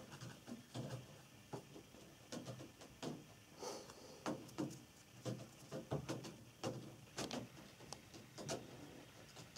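A series of soft, irregular clicks and knocks, a dozen or more, unevenly spaced.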